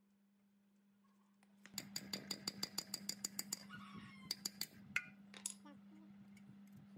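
Rapid light hammer taps on the steel shaft hub of a tape cutting machine: a quick run of sharp, ringing metallic clicks about eight a second starting about two seconds in, then a few scattered taps, one louder near the end.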